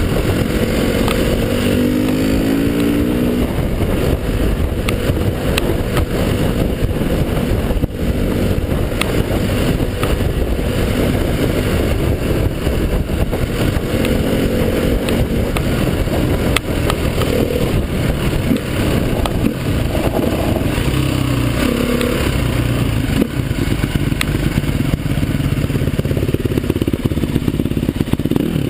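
Off-road trail motorcycle engine running under way on a rough dirt track, rising in pitch several times as it accelerates, with knocks and rattles from the bike bouncing over the ruts.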